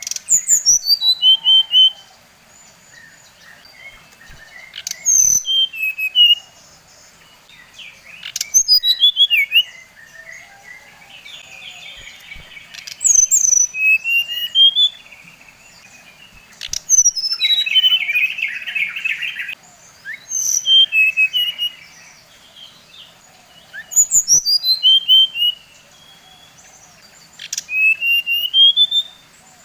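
A sikatan rimba dada coklat (SRDC) singing in short, loud phrases every few seconds: quick runs of high whistled notes, most falling in pitch and a few rising, with a harsh buzzy chatter of about two seconds near the middle.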